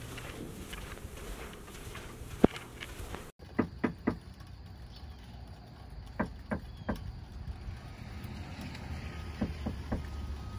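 Soft footsteps on a floor, then knuckles knocking on a front door: three raps in a row, repeated three times a few seconds apart.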